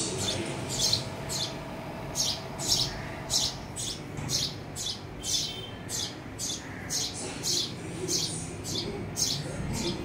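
Birds at a nest chirping: a steady run of short, high-pitched chirps, about two to three a second.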